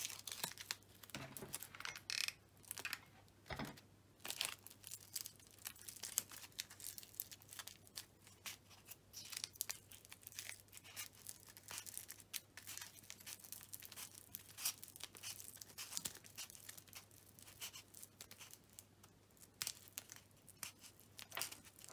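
Brown adhesive tape being pulled off its roll and wound around foil-covered wire, crackling and rustling in quick irregular snatches, with the aluminium foil crinkling under it.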